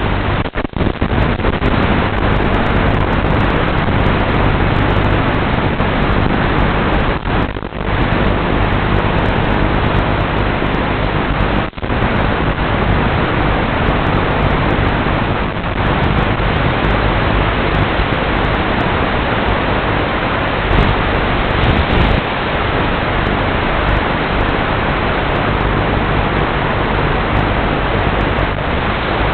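Steady static hiss from an analog 5.8 GHz FPV video receiver's audio channel, with a few brief dropouts and a faint low hum underneath.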